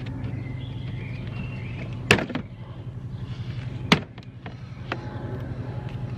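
Two sharp plastic snaps about two seconds apart, then a fainter click, as the Ford Focus ST's lower bumper grille is pulled free of its retaining clips. A steady low hum runs underneath.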